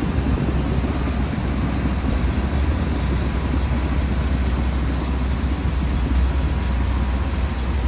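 Heavy diesel engine of earthmoving machinery running steadily under load, a continuous low rumble.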